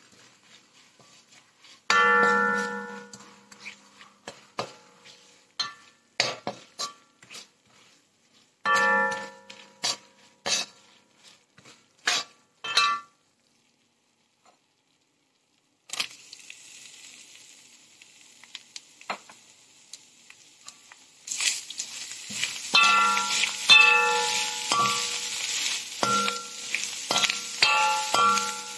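A steel slotted spoon knocking and scraping against a metal wok while stirring, each knock leaving the wok ringing briefly. About halfway through, the hiss of spice paste and clams frying comes in and grows louder about two-thirds of the way in, with the spoon still clanking over it.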